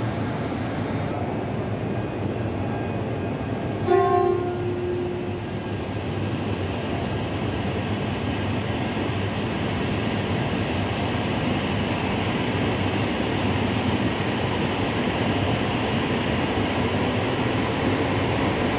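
E5 series Shinkansen running past: a steady rushing noise of wheels and air that grows slowly louder. A short horn blast sounds about four seconds in.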